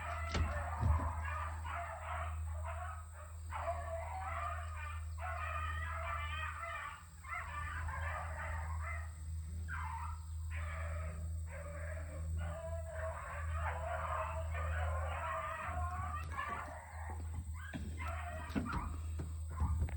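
Pack of young rabbit hounds giving tongue on a run, many overlapping barks and bays in ragged bursts, over a steady low hum.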